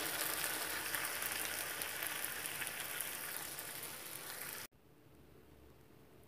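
Chicken and vegetable stir fry sizzling and crackling in a frying pan, slowly dying down, then cutting off suddenly about three-quarters of the way through.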